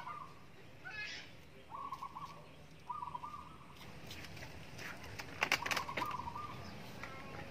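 Stiff dried rice paper wrappers crackling and tapping as they are handled, loudest about two-thirds of the way through. Behind them, poultry calls several times in short rattling bursts.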